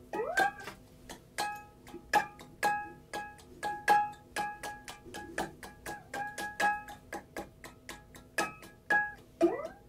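Glass jar played by hand as a percussion instrument: quick, rhythmic palm slaps and finger taps, many ending in a short pitched ring. A rising swoop in pitch sounds at the start and again near the end.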